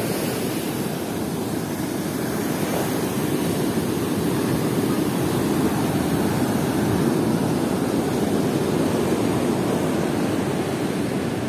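Heavy ocean surf breaking and washing up the beach in a steady, deep roar that swells a little in the middle.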